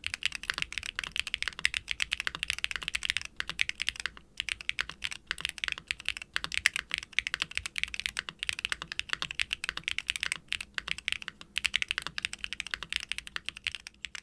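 Fast, continuous typing on a custom mechanical keyboard: Gateron Orchid HE full-POM linear switches on a carbon fibre plate in an unfoamed aluminium Hex80 case, with GMK double-shot ABS keycaps. The keys clack rapidly, with a few short pauses between bursts.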